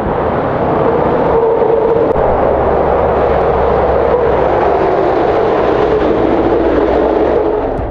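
Škoda Octavia RS iV plug-in hybrid estate driving along a wet road: a steady, loud mix of running engine and tyre-on-wet-tarmac noise with a low rumble and a hum that sinks slightly in pitch.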